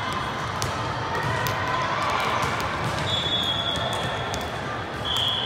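Busy indoor volleyball gym: balls hitting the hard court floor again and again, indistinct voices, and a couple of long high-pitched squeals, one about three seconds in and one near the end.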